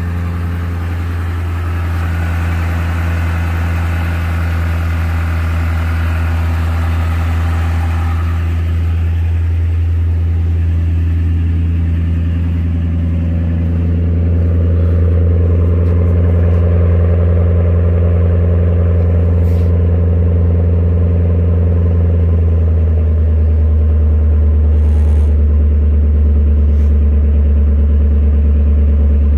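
Lincoln Town Car's 4.6-litre V8 idling steadily and smoothly just after a cold start, on Royal Purple oil. It grows a little louder about halfway through as the exhaust end of the car is neared.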